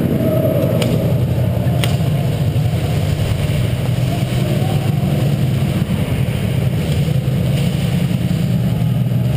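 Steady low rumble of movement and footsteps, muffled through a sealed GoPro Hero HD housing as the wearer walks and jogs. Two sharp clicks come about one and two seconds in.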